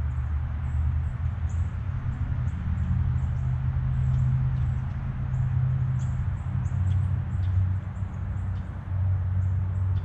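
Small birds chirping: many short, high chirps scattered throughout, over a steady low rumble that swells and fades.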